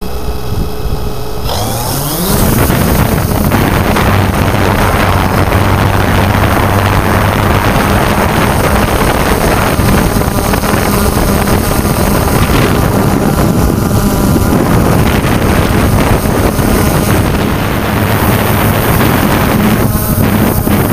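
A drone's electric motors and propellers, heard from the drone's own camera: they spin up with a rising whine about two seconds in, then hum steadily as the drone lifts off and climbs, with wind rushing on the microphone.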